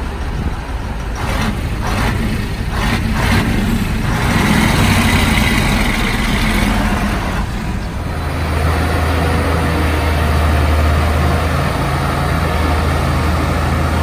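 Diesel dump truck engine running while the raised bed tips out its load of dirt. About eight seconds in the sound changes to a steady low engine drone as the truck moves off with the bed lowered.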